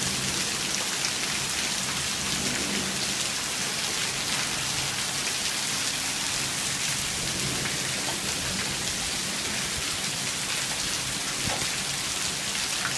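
Hailstorm: hail and heavy rain falling steadily on the lawn, street and porch, a steady hiss flecked with many small ticks from the hailstones.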